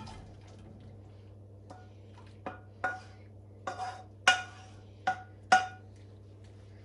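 Wooden spoon scraping and knocking against a metal frying pan to empty food out of it. A run of about seven sharp knocks, each with a short metallic ring, the loudest in the second half.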